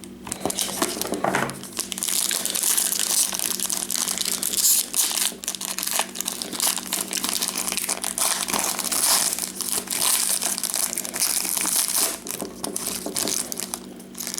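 Plastic or foil wrapping on a sealed trading-card pack crinkling and tearing as it is opened by hand: a continuous crackle of small crinkles.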